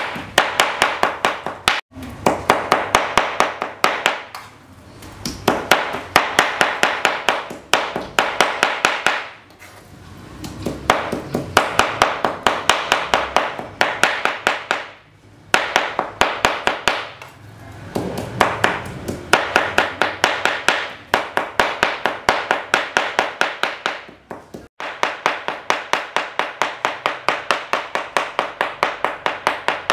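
Kitchen knife chopping raw meat into mince on a plastic cutting board: quick, even strokes several times a second, in runs of a few seconds with short pauses between.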